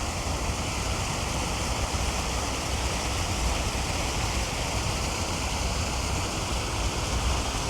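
Steady rush of water falling at a river waterfall, a constant roar with a deep rumble underneath.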